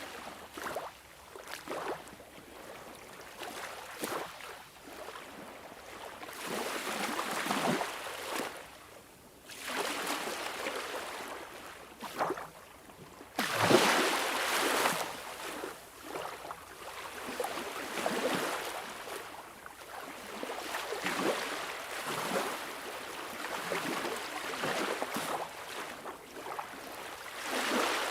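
Sea waves washing in, surging and easing every few seconds. The loudest one breaks suddenly about halfway through.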